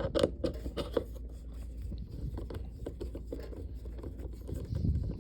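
Torx driver working a screw out of an Intermatic T101 timer switch: a quick run of sharp metal clicks in the first second, then light scraping and ticking of the tool against the mechanism.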